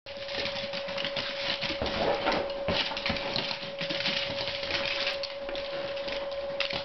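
Basenji dogs moving about, heard as a dense run of small pattering and clicking noises, with a steady thin tone underneath.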